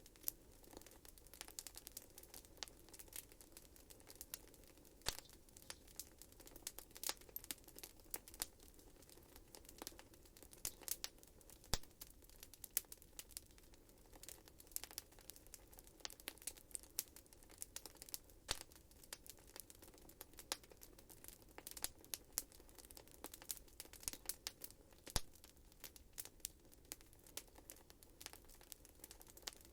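Wood fire in a fireplace crackling: a steady soft rush of flame under frequent irregular sharp pops and snaps, a few of them louder, about 12 and 25 seconds in.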